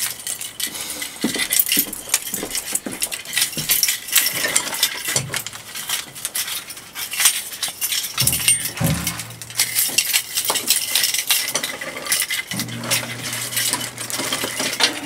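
Metal drum hardware clinking and rattling in quick, irregular clicks as a drum is worked on by hand. A low steady hum comes in briefly about eight seconds in and again near the end.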